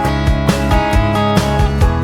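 Background music: a guitar-led tune with a steady beat.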